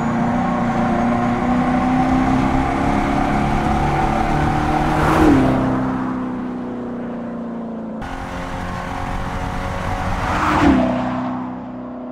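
Electric Dodge Charger's synthetic combustion-engine sound, a deep, engine-like tone rising slowly in pitch. The car passes by twice, about 5 seconds in and near the end, the sound swelling and its pitch dropping as it goes past.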